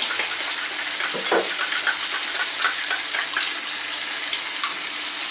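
Tomato sauce with shrimp cooking in a frying pan on a gas burner: a steady sizzling hiss with many small pops and spits.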